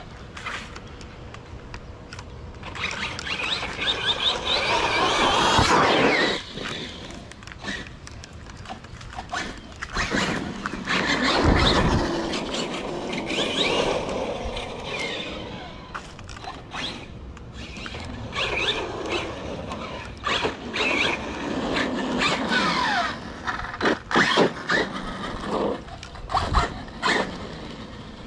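Radio-controlled car's electric motor and gears whining in bursts of a few seconds, the pitch rising and falling as it speeds up and slows, with several sharp knocks near the end.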